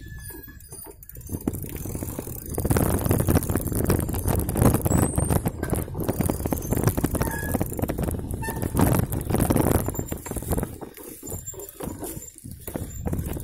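Mountain bike rolling over a rough dirt trail, heard through a handlebar-mounted camera: a dense rattle and clatter of bumps, loudest from about two and a half seconds in until about ten seconds in.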